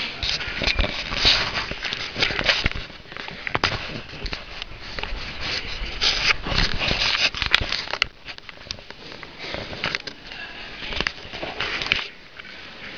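Handling noise on a handheld camera's microphone: fingers rubbing and bumping close to it, giving irregular crackles, scrapes and knocks.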